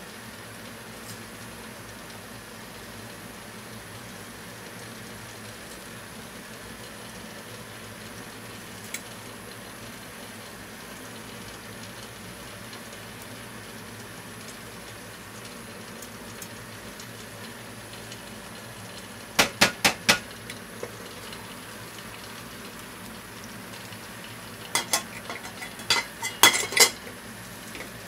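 Clams steaming in a covered stainless frying pan over a gas flame: a steady low simmering hiss. About two-thirds of the way through comes a quick run of four sharp metallic clicks, and near the end a louder cluster of clicks and taps on the pan and lid.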